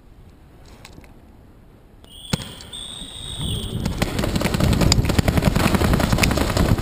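A sharp click and a high signal tone lasting about a second and a half, the start signal for the round, then a loud, dense crackle of paintball markers firing rapidly, mixed with the rattle of players running, building and keeping on.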